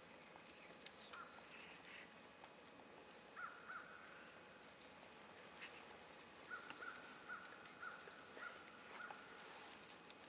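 Faint animal calls: a short run of two notes, then a longer run of six or seven short, evenly spaced notes at about two a second, with faint clicks of leaf litter.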